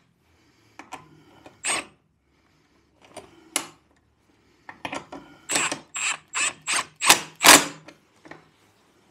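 Small cordless power tool running nuts down onto bolts in short trigger bursts, each with a thin high whine. There are a few single pulls, then a quick run of about eight brief bursts in the second half.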